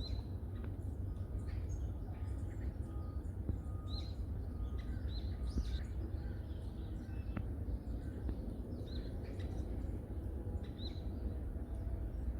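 Small forest birds chirping and calling: many short, high notes, some rising and falling, scattered through the recording over a steady low rumble.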